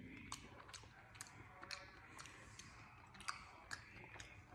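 Faint wet mouth clicks and smacks of someone chewing and tasting a syrupy cocktail cherry, about two a second, over near-silent room tone.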